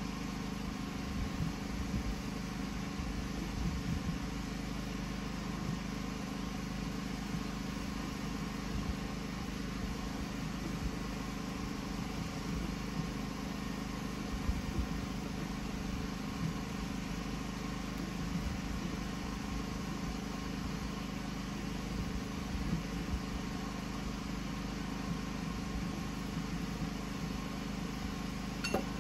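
A small engine running steadily at a constant speed, with occasional soft knocks.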